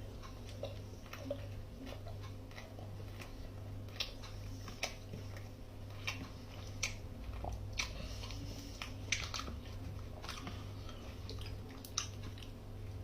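A person chewing a chicken nugget with the mouth close to the microphone: irregular soft clicks and crunches, over a steady low hum.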